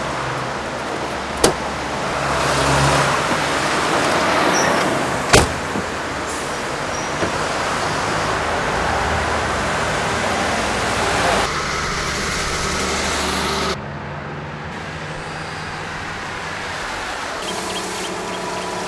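Car doors shutting with two sharp thuds, the second about four seconds after the first, over the steady sound of a car's engine and road noise. The background changes abruptly a few times.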